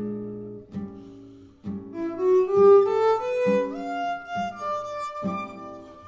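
Jazz violin playing a rising run of notes over guitar chords struck about once a second. The run climbs to its loudest about halfway through, then settles on a higher held note.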